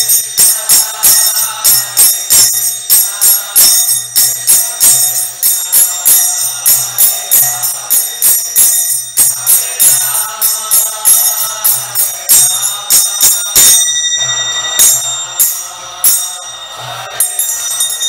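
Kirtan instruments playing on without singing: small hand cymbals (kartals) clash in a fast steady rhythm over low drum strokes and held chords. The rhythm thins to a few ringing cymbal strikes near the end.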